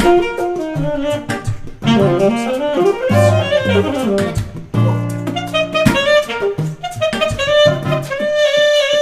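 Saxophone playing a jazzy, flowing melody line, with low accompanying notes underneath.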